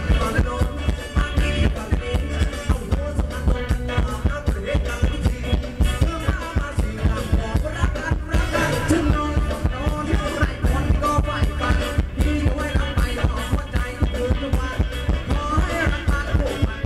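Live band playing upbeat Thai ramwong dance music over a loud PA, with a steady fast beat.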